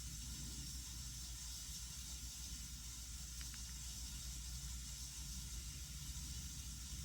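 Steady faint hiss over a low electrical hum, with a couple of faint ticks.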